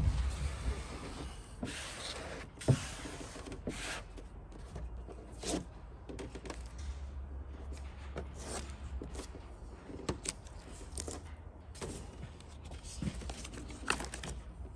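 Application tape and paper backing being peeled off a vinyl decal and handled: irregular rustles, crinkles and small clicks, over a low steady hum.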